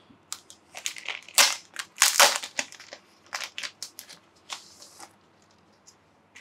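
Board-game packaging crinkling and crackling as components are pulled out of the box: a run of sharp crackles, loudest in the first two seconds or so, that thin out and stop about five seconds in.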